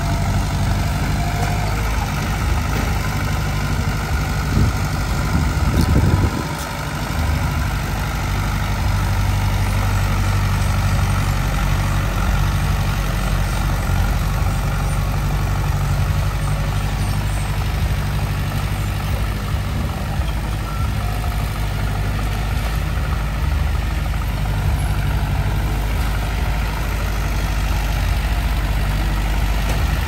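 Heavy diesel engine running steadily. There is a brief louder burst around five to six seconds in, then a short dip.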